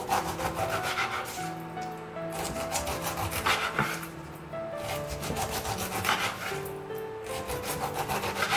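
A serrated knife saws through pineapple rind onto a wooden cutting board, in about four bursts of quick back-and-forth strokes, each a second or so long. Background music plays underneath.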